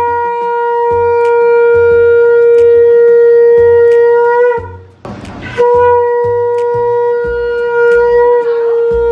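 Conch shell (shankha) blown in two long, steady blasts with a short breath between them, the first ending about four and a half seconds in. It is sounded as the auspicious call during a Bengali blessing ritual.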